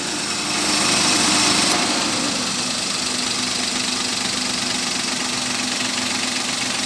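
Suzuki Alto 800's three-cylinder engine idling steadily through its stock exhaust. A louder hiss rises over it for about a second and a half near the start.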